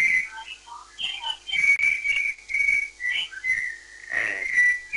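High whistling feedback squeal on a phone-in caller's line, coming and going in short stretches. It is typical of a caller whose television is playing the broadcast back into the phone.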